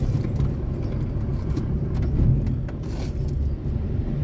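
Steady low engine and road rumble heard inside the cabin of a moving Ford Verona with a Volkswagen AP four-cylinder engine, with a few faint light clicks.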